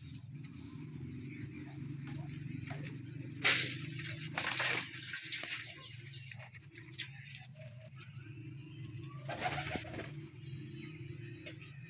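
Domestic pigeons cooing steadily in a loft. A few short rushes of noise break in: the loudest is about a third of the way in, another follows just after, and a third comes near the end.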